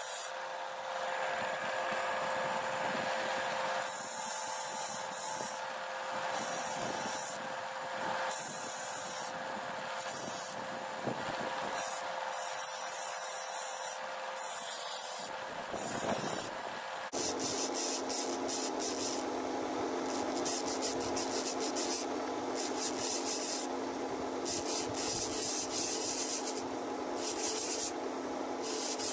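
Bench-top narrow-belt sander running with a steady motor hum, its abrasive belt rasping against an antler tube held to it by hand. The rasping comes and goes as the piece is pressed on and eased off.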